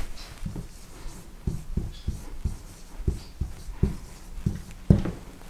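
Marker writing a word on a whiteboard: a run of about ten short, soft knocks at uneven intervals as the strokes press on the board.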